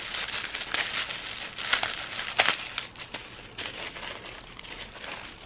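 Tissue paper crinkling and rustling in irregular bursts as it is pulled back and folded aside inside a gift box. It is loudest around the middle.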